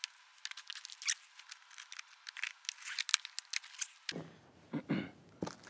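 Cardboard shipping box being unstrapped and opened: a quick run of scratchy clicks, scrapes and snaps from the plastic packing strap and the cardboard flaps, played sped up. For the first four seconds it sounds thin, with no bass.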